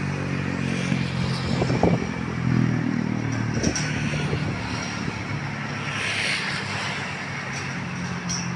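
Road traffic, with a motor vehicle engine running steadily close by and a few brief knocks.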